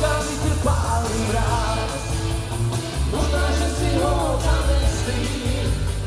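Loud music with a singing voice over a heavy bass.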